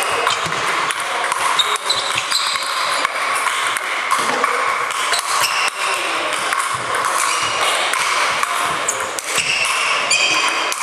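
Table tennis balls clicking off the table and sandpaper bats in an irregular run of sharp pings during a rally, with more clicks from neighbouring tables. A steady background noise of the hall runs beneath.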